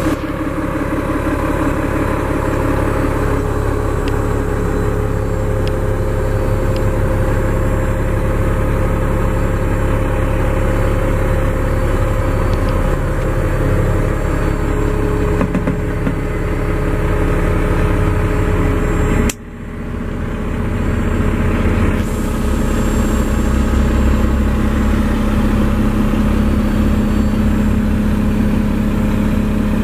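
Mack MP7 diesel engine idling steadily, heard from inside the truck's cab. There is a brief drop in loudness about two-thirds of the way through, and the hum is a little stronger afterwards.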